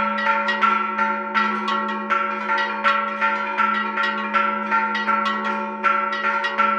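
A repique on church bells: hand-pulled rope clappers strike a large bell and smaller bells in a quick, continuous rhythm of several strokes a second. The rings overlap over the long hum of the largest bell.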